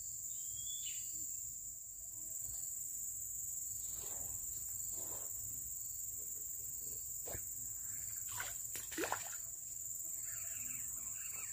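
Steady high-pitched drone of insects, with a few faint rustles and a sharp click around the middle.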